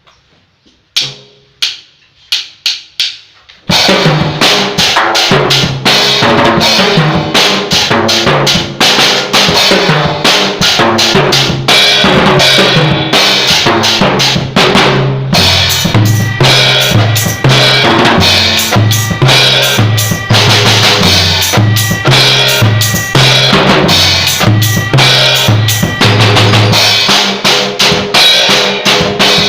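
Several sharp count-in clicks, then from about four seconds in a drum kit plays a steady beat along with a song that has a moving bass line.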